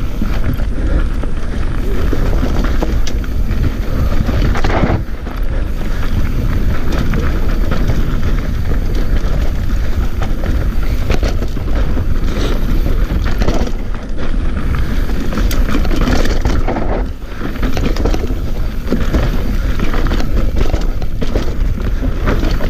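Mountain bike descending a dirt singletrack at speed: wind buffeting the action camera's microphone over the rumble of tyres on dirt and rocks, with frequent knocks and rattles from the bike over bumps.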